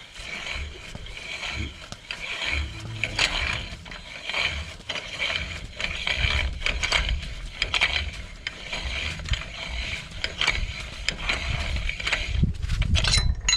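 Ratchet wrench clicking in repeated back-and-forth strokes, about one stroke a second, as a 2.5-inch hub socket unthreads a front spindle nut.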